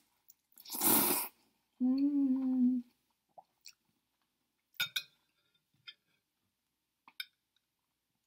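A person slurping a mouthful of noodles, then humming a closed-mouth "mmm" of enjoyment for about a second. A few soft chewing and mouth clicks follow.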